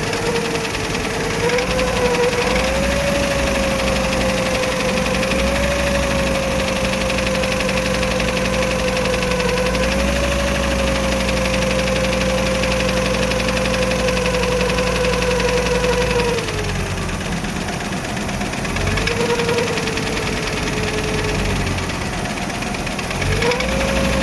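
VW T4 California's AAF 2.5-litre five-cylinder petrol engine running near idle, with a prominent whine above the engine note whose pitch drifts slightly up and down. The whine drops away about two-thirds of the way through, comes back briefly, then returns near the end; this is the noise issue the owner is showing.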